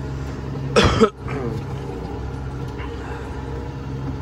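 Tractor engine running steadily, heard from inside the cab as the tractor drives along a track. About a second in there is a brief, loud vocal noise from a person, like a throat clear or grunt.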